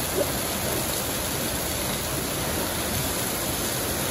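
Steady rush of churning white water in a river-rapids ride channel.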